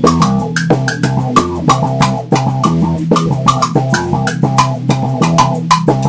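Instrumental music track: bass guitar and guitar over a drum kit keeping a steady beat.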